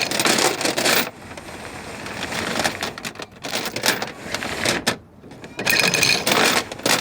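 Irregular clattering and rattling of hands working with tools and parts on the anchor windlass's electrics, louder in the first second and again near the end.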